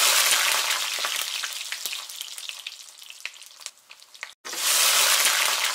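Food frying in hot oil: a dense sizzle with scattered crackles, loud at first and fading, cut off abruptly about four seconds in, then a second burst of sizzling starts at once.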